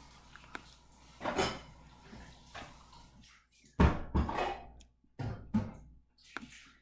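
Scattered knocks and thuds at irregular intervals, with two heavier thumps close together a little after the middle.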